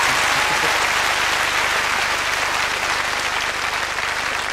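Studio audience applauding, easing off slightly toward the end.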